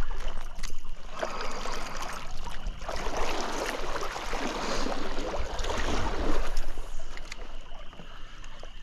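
Water splashing and sloshing at a stream's edge, with rustling and small knocks close to the microphone. It is busiest in the middle and eases off near the end.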